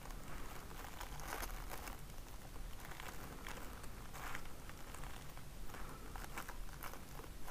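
Faint, irregular rustling and crinkling of hands handling the beaded wire tree and the plaster-soaked gauze bandage being wrapped around its trunk.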